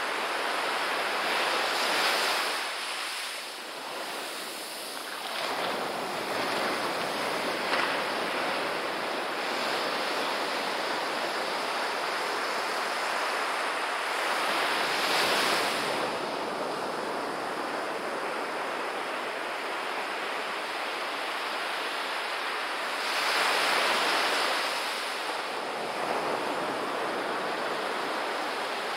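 Small ocean waves breaking and washing up a sandy beach, a steady surf wash that swells louder about two seconds in, again around fifteen seconds, and near twenty-four seconds as sets break.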